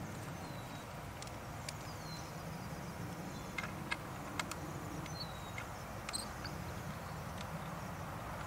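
A few sharp clicks and knocks from hands working the Wicked Ridge NXT 400 crossbow's mechanism, clustered around the middle. Behind them is a steady outdoor background with short, falling bird chirps.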